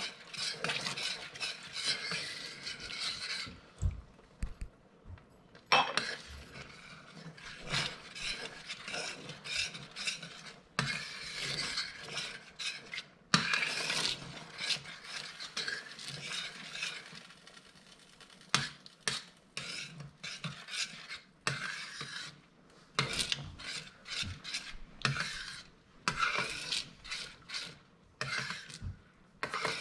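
A metal spoon stirring and scraping around a stainless steel frying pan through thick hoisin-and-milk sauce. It goes in irregular strokes with clinks and a few short pauses.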